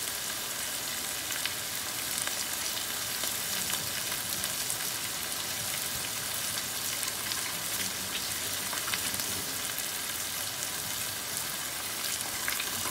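Shredded salt fish frying in a stainless steel pan, a steady sizzle with small crackles. Near the end a wooden spatula starts stirring it.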